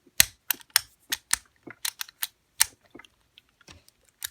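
Sharp, irregular metal clicks and taps from handling a Master Lock M176 combination padlock, its shackle and number wheels, about a dozen in quick succession.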